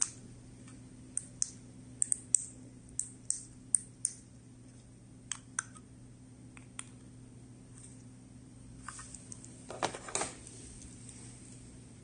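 Plastic buttons of key-fob remote controls, a four-button 433 MHz copy remote and a Nice Flor-s gate remote, clicking as they are pressed, about a dozen sharp clicks over the first seven seconds. Near the end comes a short clatter as the remotes are handled, over a low steady hum.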